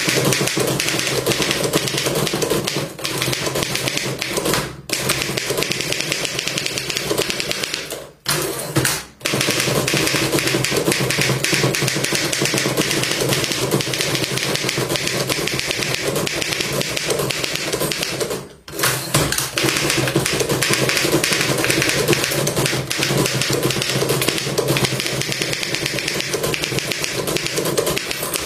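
Antique manual typewriter being typed on quickly: a dense, fast run of typebar strikes clacking against the platen, broken by a few brief pauses.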